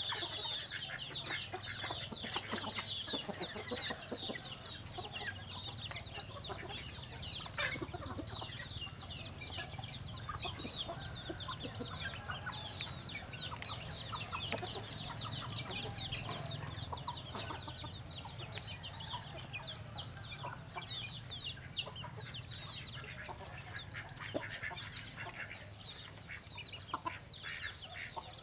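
A flock of chickens calling: a dense, continuous chorus of short, high, falling peeps with some lower clucks mixed in, over a faint low hum.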